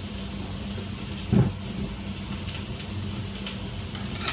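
A pot of chicken curry simmering on the stove, a steady bubbling hiss over a low hum, with one loud dull thump about a second and a half in and a short sharp click at the very end.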